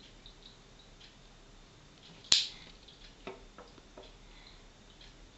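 One sharp click a little over two seconds in, then three softer clicks about a second later, amid faint ticking.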